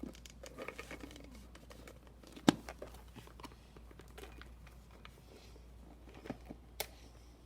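Small plastic toy packaging being handled and tugged at: light rustling and scattered small clicks, with one sharp knock about two and a half seconds in and a smaller one near the end.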